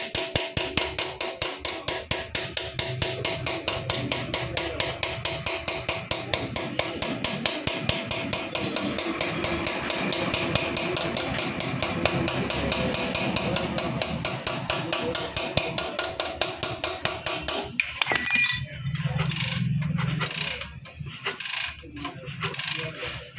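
Hammer tapping a steel RX 100 crank pin into a 61904 ball bearing: rapid, even metal-on-metal taps, several a second, each with a ringing tone, stopping about eighteen seconds in.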